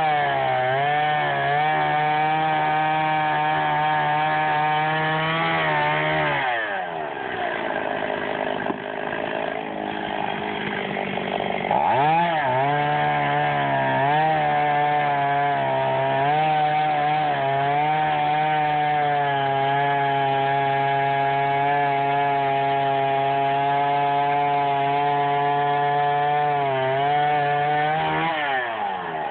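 Chainsaw at full throttle cutting into wood. About six seconds in the engine drops back to idle. It revs up again and cuts steadily for about sixteen seconds, then drops back near the end.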